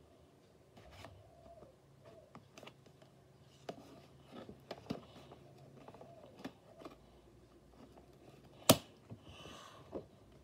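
Toy packaging being opened by hand: quiet scattered rustles and small clicks, with one sharp click near the end.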